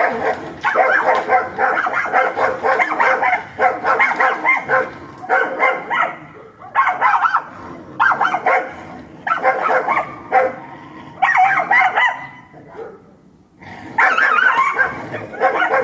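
Dogs fighting: dense, rapid snarling, growling and barking in bursts of a second or two, with yips mixed in and a brief lull about twelve seconds in before it flares up again.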